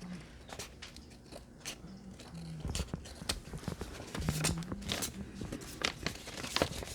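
Scissors snipping through paper: a string of short, crisp snips and paper rustles, coming more often in the second half.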